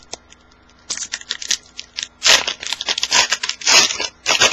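A trading card pack wrapper being torn open and crinkled in the hands. It starts in short crackles about a second in and gets louder and denser after about two seconds.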